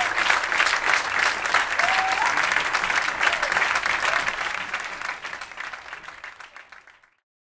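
Audience applauding, a dense patter of many hands clapping, fading away over the last few seconds and cutting off to silence about seven seconds in.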